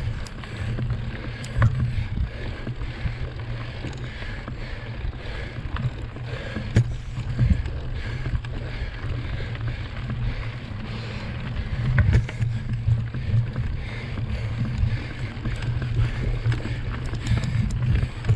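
Mountain bike rolling over a rough off-road trail: a steady low rumble from the tyres and bike, broken by a few sharp knocks and rattles over bumps.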